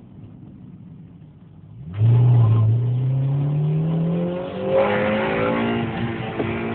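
Honda VTEC four-cylinder engine heard from inside the car: quiet for about two seconds, then put to full throttle, it jumps loud and pulls hard, its pitch rising steadily as the car accelerates, with a brief dip in level about four and a half seconds in.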